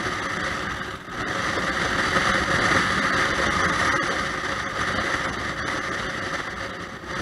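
Honda Shadow VT600 V-twin motorcycle under way, its engine running under a steady rush of road and wind noise heard from a helmet-mounted camera. The noise dips briefly about a second in, then grows louder again.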